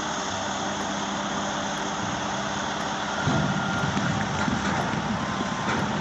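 Volvo articulated dump truck's engine running steadily as it raises its dump body hydraulically. A rougher, louder rumble joins about three seconds in as the load of earth starts to slide out of the tipped body.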